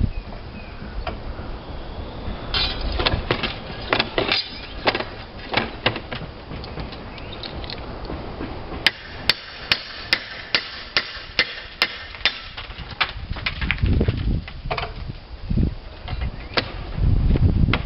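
A hammer striking repeatedly: scattered sharp strikes in the first few seconds, then a steady run of about a dozen quick taps, two or three a second, from about nine seconds in. A few low thuds come near the end.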